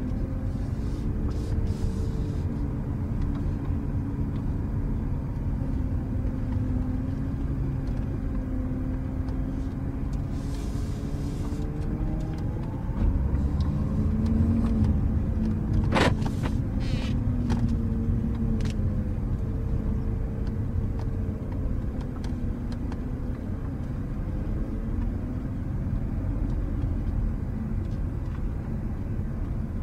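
Steady low rumble of motor traffic, with engine tones slowly rising and falling as vehicles move past. A single sharp click about sixteen seconds in.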